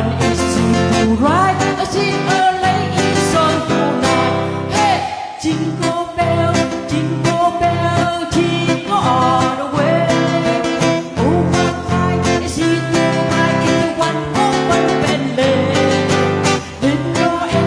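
A song with a singing voice over guitar accompaniment and a steady beat.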